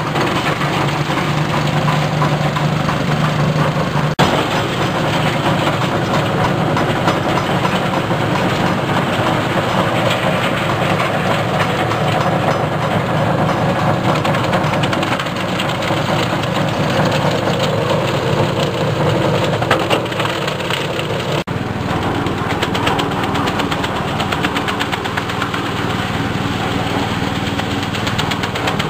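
Small engine-driven compost shredder running steadily while leaves and green plant waste are fed into its hopper and chopped. The engine and the rotating chopper blades make a constant loud mechanical din, which dips and shifts slightly twice.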